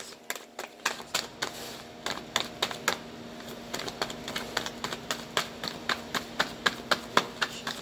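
A deck of tarot cards being shuffled by hand, a fast, irregular run of crisp card clicks and flutters as the cards are worked from one hand to the other.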